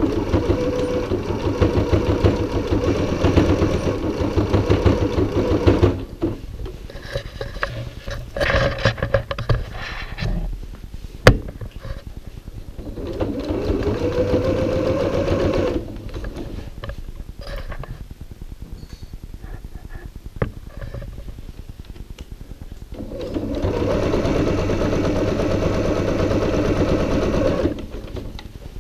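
Electric domestic sewing machine stitching in several runs of a few seconds each, stopping and starting as the fabric is guided around a curved seam. A single sharp click comes a little before the middle.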